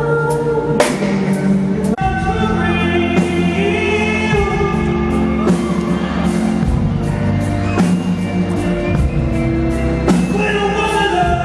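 Singing over music with a drum beat, with held notes and sliding vocal runs.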